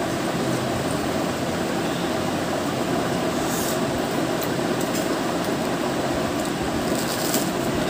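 Steady background noise, even and unbroken, with a few faint short clicks near the middle and toward the end.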